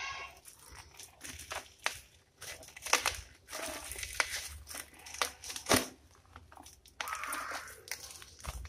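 Black plastic shipping wrap crinkling and tearing as it is cut and pulled off a small cardboard box, with irregular sharp crackles, the loudest about three and six seconds in.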